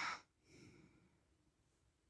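The end of a man's snore fading out at the start, then a faint breath about half a second in, then near silence: the pause between snores.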